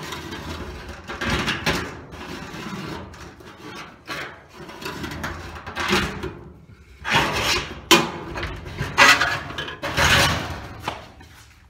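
Metal scribe scratching along the painted steel skin of a garage door, tracing the inside edge of a letterbox: a run of separate scraping strokes, each up to about a second long, louder in the second half.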